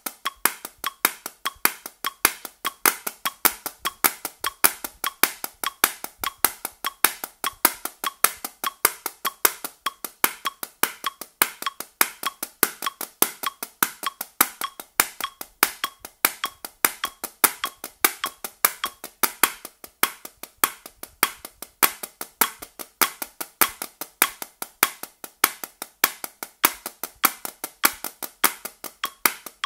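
Wooden drumsticks striking a practice pad in steady triplets at 100 BPM, about five strokes a second, with a louder accented stroke on every beat. The sticking switches between one hand alone and both sticks together.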